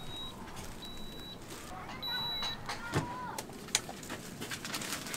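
Street food stall ambience while a waffle is handled and wrapped: scattered light clicks and handling noises, faint voices in the background, and three short high beeps in the first two and a half seconds.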